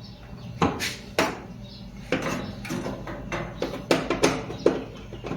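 Irregular sharp metallic clinks and knocks of tools and dryer parts being handled during repair, about nine of them, over a steady low hum.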